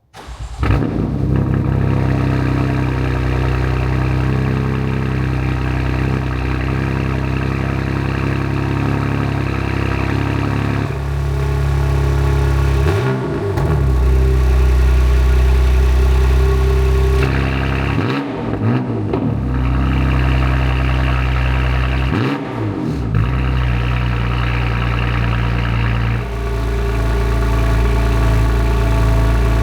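BMW F80 M3's S55 twin-turbo inline-six cold-starting through a titanium equal-length, single-midpipe valved catback exhaust. It catches within the first second and settles into a steady idle, with three short dips and rises in engine pitch in the middle stretch.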